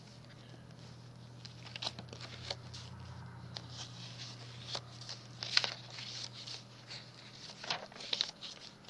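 Paper pages and embellishments of a handmade junk journal being handled and turned: scattered soft rustles, crinkles and light taps, the loudest about halfway through and again near the end.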